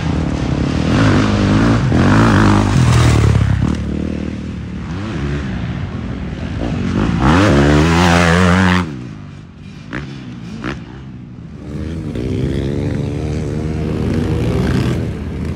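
Off-road motorcycle engines revving up and dropping back again and again under load. The sound cuts off abruptly about nine seconds in, and two sharp knocks follow. A quad's engine then runs and revs through the rest.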